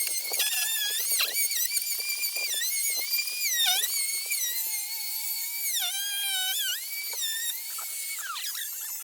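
High-speed rotary carving tool whining, its pitch dipping and recovering again and again as it bites into wood.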